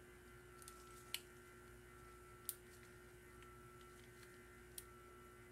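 Near silence: a faint steady electrical hum, with three faint short ticks about a second, two and a half seconds and nearly five seconds in.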